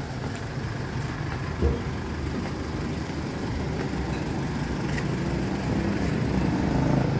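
A motor-vehicle engine running with a steady low hum that grows louder toward the end, with a single knock about a second and a half in.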